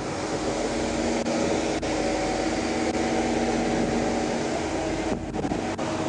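Steady hum and whir of an idling police patrol car, its engine and ventilation fan running together, with a couple of faint clicks.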